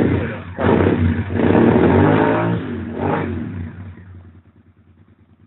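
2001 Suzuki SV650's V-twin engine revved with three throttle blips, the last held for about two seconds, then dropping back to a low steady idle.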